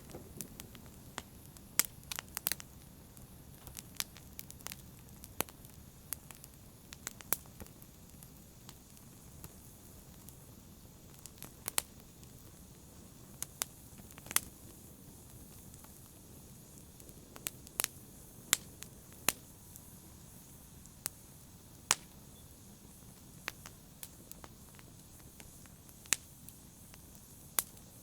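Wood fire crackling: irregular sharp pops and snaps, one or two a second, over a low steady rush of burning.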